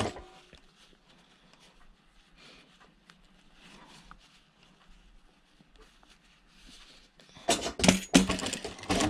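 Faint rustling of cotton fabric being folded and handled at a sewing machine. About seven and a half seconds in, a run of loud, irregular sharp sounds starts.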